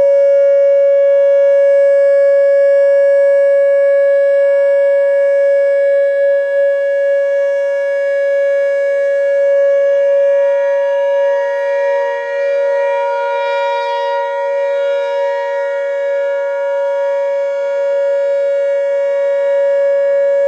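Whelen WPS-2910 electronic outdoor warning siren sounding its alert signal, one loud steady tone held without rising or falling. Around the middle a fainter second siren tone swells in and fades away again.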